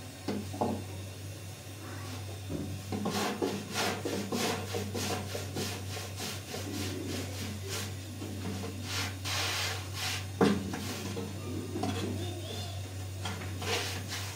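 Rhythmic scraping strokes, a few a second, starting about three seconds in, over a steady low hum.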